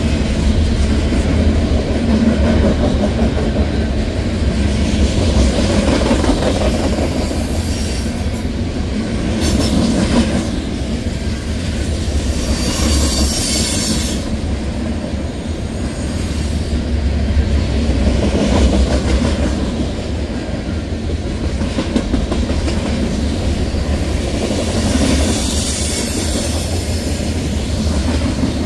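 Freight train of tank cars rolling past at close range, a steady low rumble of wheels on rail. A faint high wheel squeal rises twice, around the middle and again near the end.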